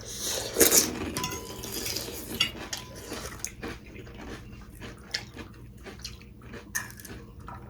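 Tableware clinking during a meal: spoons and utensils clicking against plates and bowls in scattered sharp knocks, with a louder burst of noise in the first second.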